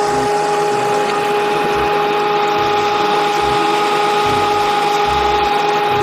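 A motorised machine running steadily at a constant pitch, a steady whine over a rushing noise, cutting off abruptly just after the end.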